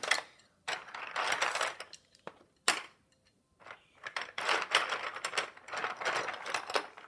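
Plastic Playstix building sticks rattling and clacking together as a hand rummages through them in their box, in two spells of rattling with a single sharp click between them.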